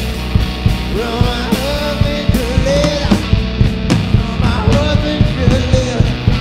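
Live blues-rock band playing: electric guitar, electric bass and drum kit keeping a steady beat, with a male voice singing over them.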